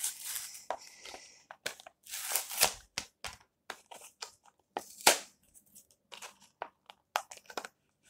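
Cardboard-and-plastic blister packaging of a Hot Wheels die-cast car being torn and crinkled open by hand, in irregular bursts of ripping and crackling. The loudest come about two and a half and five seconds in.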